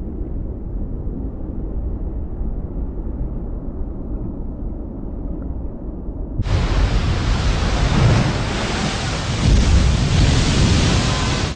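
Rumbling roar of rushing tsunami water. About six and a half seconds in, it cuts abruptly to a much louder, hissing rush, then stops sharply.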